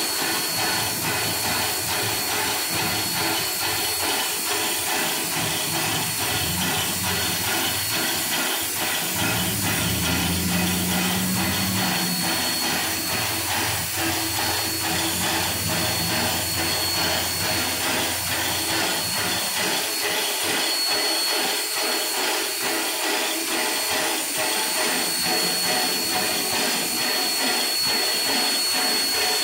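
Standing 2-8-0 steam locomotive, No. 1702, venting steam with a steady hiss. A low drone joins in for a few seconds in the middle.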